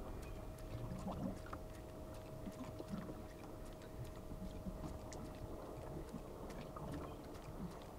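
Small waves lapping against a fishing boat's hull, with scattered light ticks and a faint steady whine.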